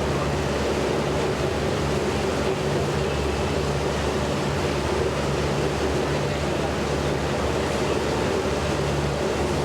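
Steady low machine hum over a continuous outdoor noise background, the hum's low tone swelling and easing every second or so.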